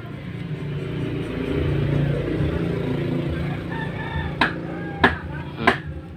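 A rooster crowing in the background, a long drawn-out call. Near the end come three sharp knocks about two-thirds of a second apart.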